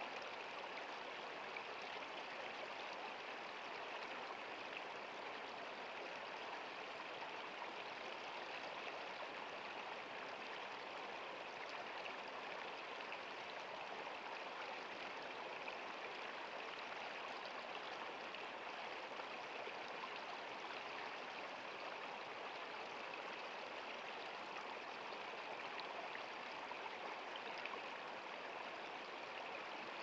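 Shallow stream flowing steadily over stones, a constant, even rush of running water.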